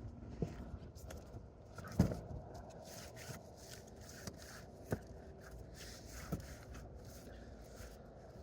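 A few light knocks and scrapes from handling, spaced a second or more apart, the loudest about two seconds in, over a steady low background hiss.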